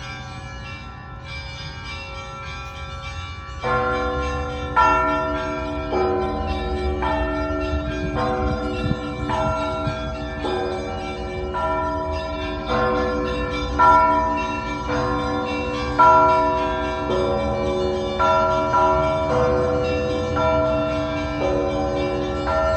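Orthodox cathedral bells ringing: a run of bell strokes about one a second, each on a different set of pitches, that starts softer and comes in louder about four seconds in.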